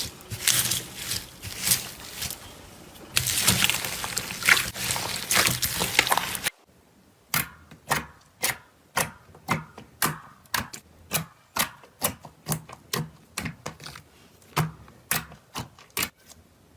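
Slime being handled: a dense run of crackling and sharp snaps, then after an abrupt change a steady series of crisp pops or clicks, about two a second.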